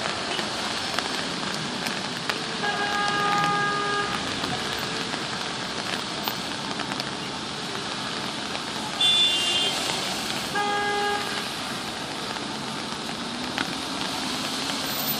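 Car horns honking three times over a steady hiss of rain and traffic on wet pavement: one about three seconds in, a higher, louder one about nine seconds in, and another a second later.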